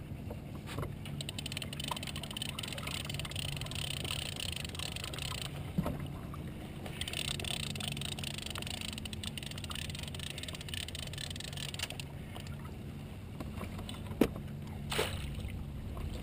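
A fishing reel worked against a hooked salmon: two long stretches of fast fine clicking and hiss over a steady low hum. A splash comes near the end as the fish nears the kayak.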